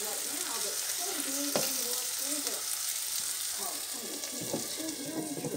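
Shredded cabbage sizzling and frying in a hot cast-iron skillet, with one sharp clink about a second and a half in. The sizzle turns duller near the end as a glass lid is set on the pan.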